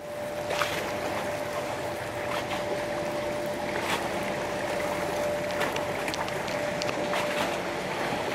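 Open-air waterside noise of wind and water, with a steady distant engine drone and scattered small clicks.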